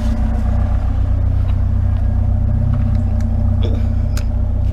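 Vehicle engine idling steadily with a low rumble, with a few faint knocks near the end.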